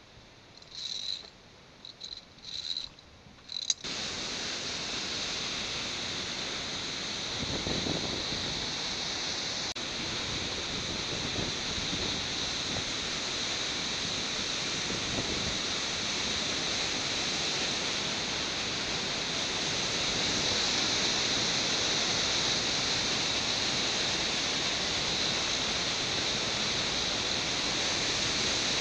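Rushing white water of a mountain torrent, a steady even rush that starts abruptly about four seconds in. Before it there are a few brief faint high sounds.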